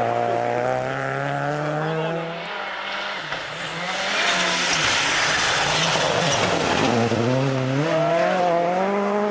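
Rally car engines on a snowy forest stage. First a steady engine note that sags slightly in pitch. Then the turbocharged four-cylinder of a Peugeot 206 WRC at full throttle passes with a loud rush of spray and tyre noise, and its engine note rises again near the end.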